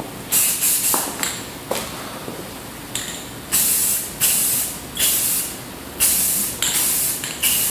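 Aerosol spray can of Rust-Oleum acrylic enamel spraying in short hissing bursts, each under a second: one just after the start, then a quicker run of about five from about halfway. It is laying a light first coat of black paint onto an aluminum wheel.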